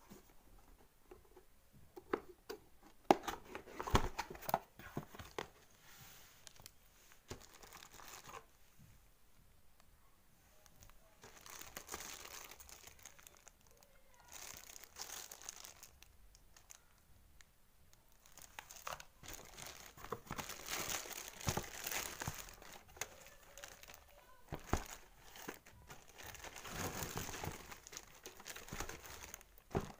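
Cardboard packaging box being handled and opened, with clear plastic wrap crinkling and rustling. A few sharp knocks and taps of the cardboard come in the first few seconds; the crinkling comes in spells and is loudest in the second half.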